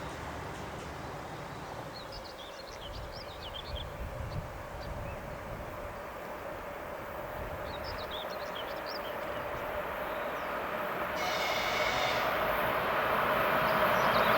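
An electric train approaching, its rumble growing steadily louder with a steady hum, and a brief high tone about eleven seconds in. Small birds chirp twice in the first half.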